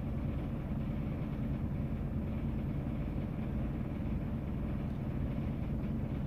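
Steady low hum and rumble of background noise, unchanging throughout, with no distinct sounds rising above it.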